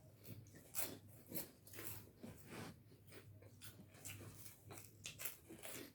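Faint, irregular chewing and mouth noises: soft clicks, smacks and crunches scattered every half second or so.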